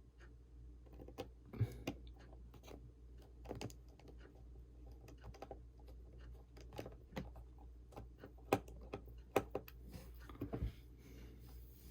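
Irregular light clicks and taps of small tools and parts being handled during a phone repair, over a steady low hum.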